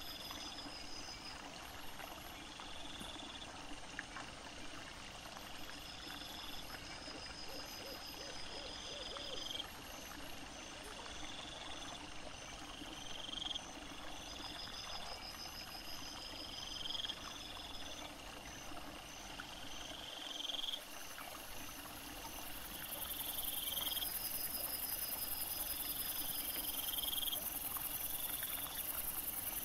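Night insects chirping in short repeated high phrases every second or two, with faster pulsed trills between them. About two-thirds of the way in, a steady high hiss of insect song joins and becomes the loudest sound.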